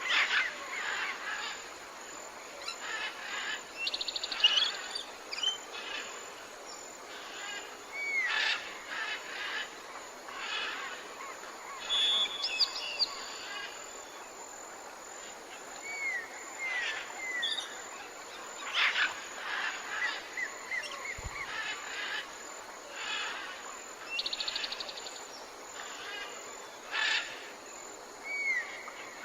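Several birds calling outdoors: short chirps, small arching whistled notes and quick high trills scattered through, over a faint steady outdoor hiss.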